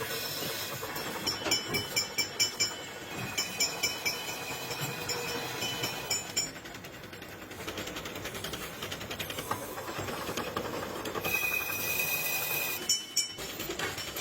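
Workshop machinery running, with rapid metallic clattering in the first several seconds and a steady high whine a little before the end.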